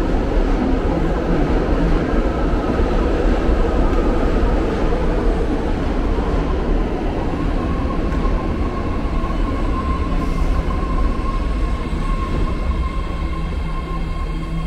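BART train moving at an underground station platform: a loud, steady rumble, with a high steady whine joining about halfway through.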